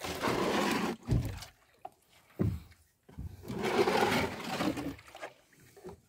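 Small boat being worked along to the next fish trap: two stretches of rustling, sloshing noise with two dull knocks between them.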